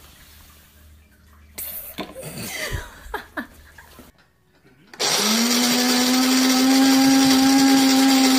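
An electric motor spins up about five seconds in, rising quickly to a steady pitch, and runs on as a loud, even hum with a hiss over it.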